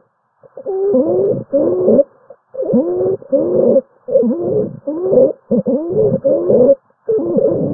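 Stridor: harsh, pitched breath noises, about a dozen short ones in quick succession, each bending up and down in pitch. The sound is the sign of a narrowed upper airway (larynx or trachea).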